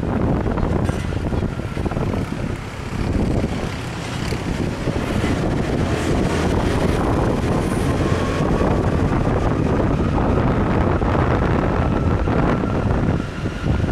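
Wind buffeting the microphone on a moving motorbike, over the motorbike's engine and surrounding traffic. A faint whine rises slowly in pitch over the second half.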